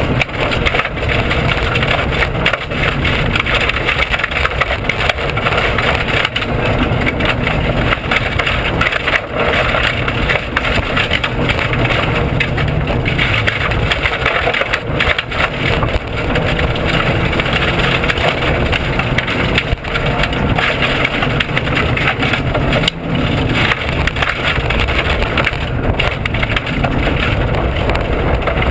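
Inside a Subaru WRX rally car at speed on a gravel forest stage: a loud, constant din of road noise, stones striking the underbody and the cabin rattling and knocking, with the engine running underneath. The car is being driven with its rear suspension broken.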